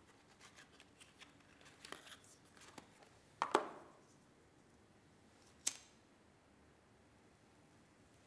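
A cigarette lighter being handled and struck: faint small clicks and rustles, then a louder scraping click about three and a half seconds in and a sharp click near six seconds, after which the flame burns quietly.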